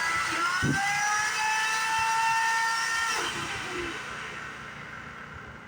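Greenworks corded electric chainsaw's motor whining at speed, its pitch rising just after the start and holding steady, then released about three seconds in and winding down, with a knock near the start.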